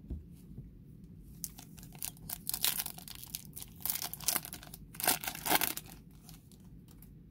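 A foil trading-card pack wrapper being torn open and crinkled in the hands: a few seconds of crackling tears and crinkles, loudest at two points about halfway through and near the end.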